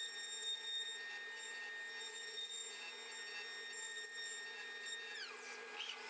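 Masterwood CNC router's spindle whining at a steady high pitch over a lower machine hum; about five seconds in, the whine glides down in pitch.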